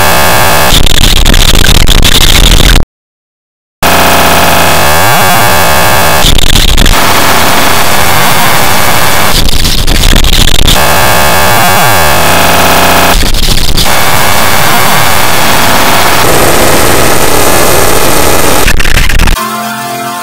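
Harsh, heavily distorted and clipped noise from digital audio effects laid over a cartoon clip's soundtrack, filling every pitch. It cuts out to silence for about a second around three seconds in, and drops quieter with a different texture near the end.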